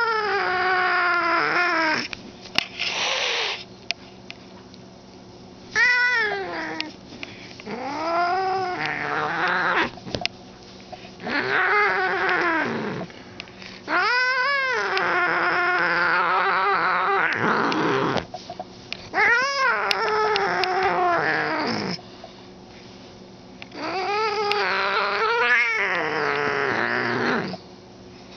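Long-haired ginger cat yowling in a string of about eight long, drawn-out calls that rise and fall in pitch, each one to several seconds long with short pauses between: the angry yowling of a cat in an aggressive, attacking mood.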